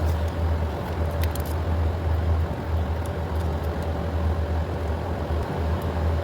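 Steady low rumble in the background, with a few small, sharp metallic clicks about a second in as a hand tool works a fuel-line retaining clip.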